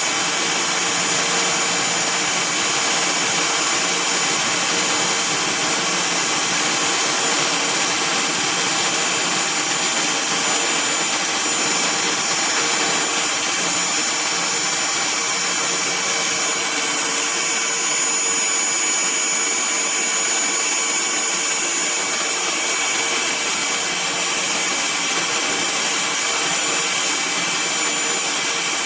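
Toolpost milling and grinding spindle on a lathe, its small high-speed motor running steadily with a high whine.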